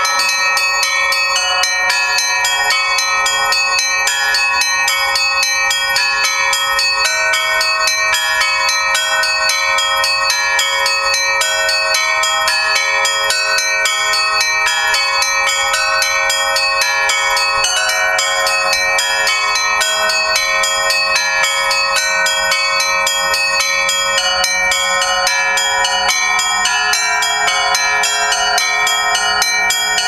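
A set of Russian Orthodox church bells hung on a portable frame, rung by one ringer pulling ropes tied to the clappers: a continuous peal of many bells, the small bells struck rapidly over the steady ring of the larger ones.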